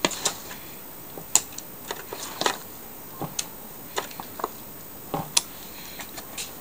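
Spoon and spatula clinking and scraping against a stainless steel mixing bowl and an aluminium foil baking pan while thick cornmeal batter is scooped and spread: scattered, irregular light clicks and knocks.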